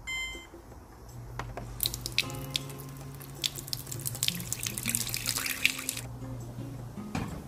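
A countertop water purifier pours a stream of water into a steel pot of raw rice. The splashing starts about two seconds in and cuts off suddenly about six seconds in. A short electronic beep from the purifier's touch button comes at the very start, with background music underneath.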